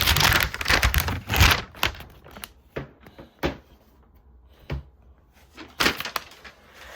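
Packaging crinkling and rustling for about a second and a half, then a few scattered light taps and knocks as the MacBook Air and its box are handled.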